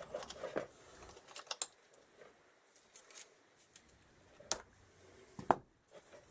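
Small metal motorcycle parts clinking and rattling as they are rummaged through in a box of spares, with scattered sharp clicks.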